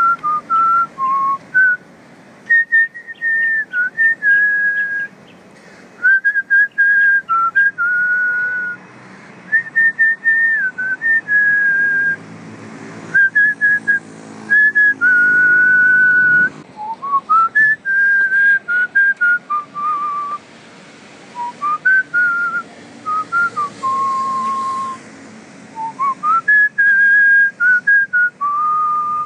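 A whistled tune as background music: a single clear melody line moving between held notes, with short breaks between phrases.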